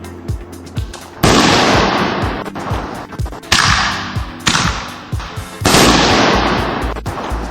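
Consumer fireworks going off: four sudden loud bursts, each fading away over a second or so. Background music with a steady beat plays underneath.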